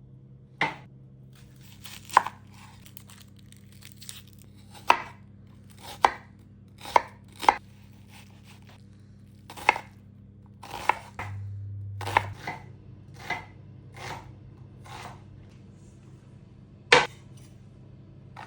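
Knife chopping on a cutting board: single strokes at an uneven pace, roughly one or two a second, some much sharper than others.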